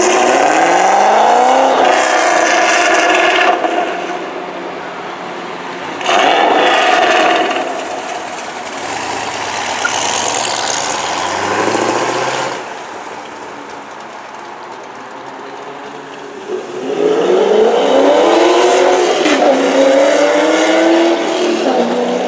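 A C6 Corvette's V8 revving hard as the car accelerates away, pitch climbing in loud sweeps. Further hard accelerations follow, a burst about six seconds in and a loud run of revving with rising and falling pitch from about seventeen seconds on, with quieter engine sound between.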